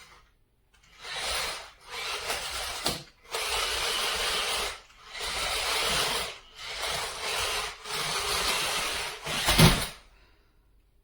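Remote-control stunt car's small electric drive motors whirring in repeated bursts of one to two seconds, with short pauses between them. A loud knock comes near the end, and then the motors stop.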